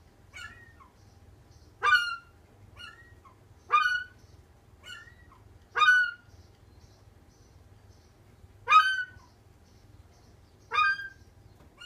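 A seagull calling over and over, short downward-sliding calls, a loud one about every two seconds with fainter ones in between: the begging calls of a tame gull asking for food.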